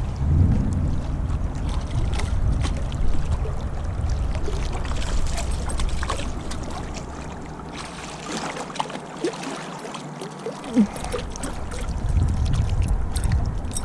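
Wind buffeting the microphone over the steady rush of river water. The wind rumble drops away for a few seconds past the middle and then returns; faint short squeaks sound in the gap.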